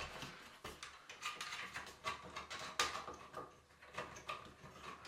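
Small irregular metal clicks and scrapes as a nut is threaded onto the light-kit mounting stud inside a bathroom exhaust fan housing and tightened, with one sharper click a little before the middle.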